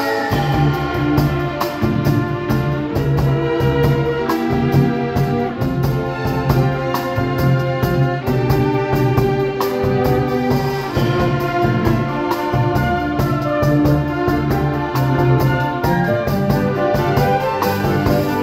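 Live band music: a violin plays a melody over a drum kit that keeps a steady beat with cymbal hits, with low notes sounding underneath.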